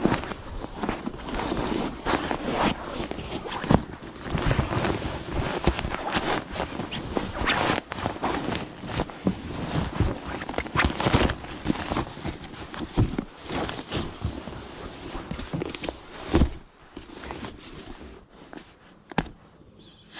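Footsteps and handling noises: irregular crunches and knocks, with one sharper knock late on and quieter activity near the end.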